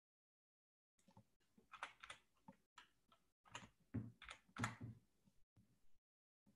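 Faint, irregular clicks and taps of a computer keyboard and mouse, starting about a second in.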